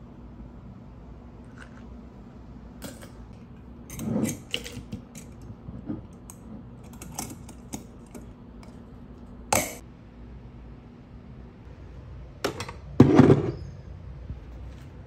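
Used aluminium Nespresso coffee pods clinking against each other and against a glass clip-top jar as a hand handles them: scattered clicks and clatters, the loudest cluster near the end.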